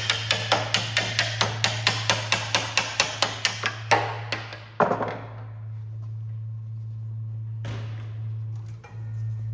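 Hammer tapping rapidly, about four or five blows a second, for about four seconds, then two heavier knocks and one more near the end, over a steady low hum: an old worn sleeve being knocked off a Concept2 oar shaft.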